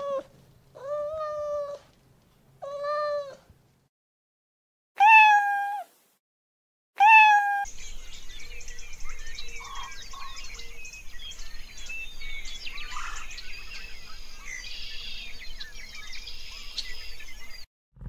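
Domestic cat meowing five times, each a drawn-out call, the last two louder. From about eight seconds in, a steady outdoor background with many short, faint chirps.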